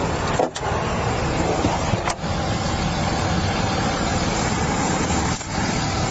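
Steady noise of a motor vehicle idling close by, with three brief sudden dips in level.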